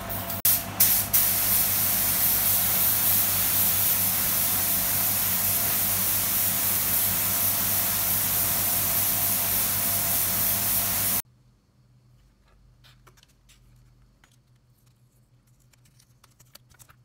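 Gravity-feed spray gun spraying paint with compressed air: a few short bursts at the start, then a steady loud hiss that cuts off sharply about eleven seconds in. After that only faint light ticks.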